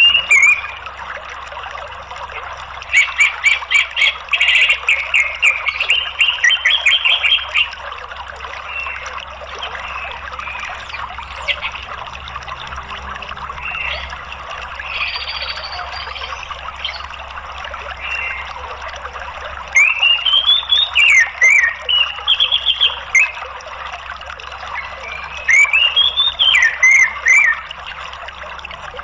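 Orange-headed thrush singing in three loud bouts: a fast run of rapid repeated notes a few seconds in, then two phrases of rising and falling whistles near the end, with scattered softer notes between. A steady rush of running water underlies it throughout.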